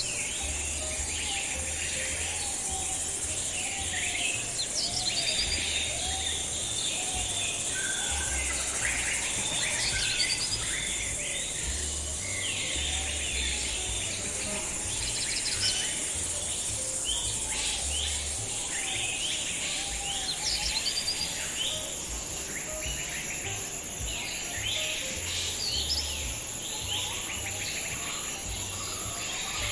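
Many songbirds chirping and calling over a steady high-pitched drone of insects such as crickets.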